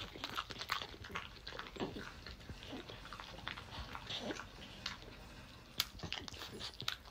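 French bulldog chewing a piece of raw napa cabbage, with irregular wet crunches and mouth smacks.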